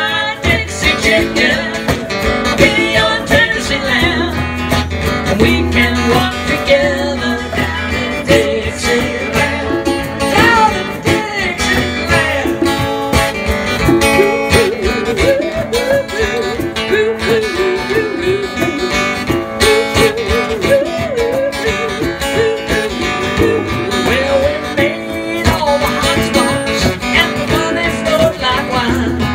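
Live acoustic country-rock band music: a steadily strummed acoustic guitar with hand percussion, congas and a shaker, and a wavering melody line over it.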